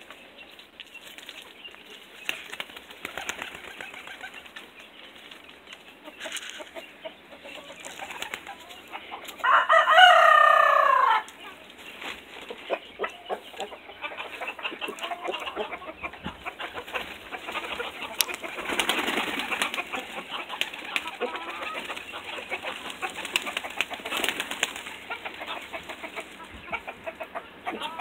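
Pigeons flapping their wings and moving about, with scattered light clicks and taps throughout. About ten seconds in, one loud pitched call lasts about a second and a half.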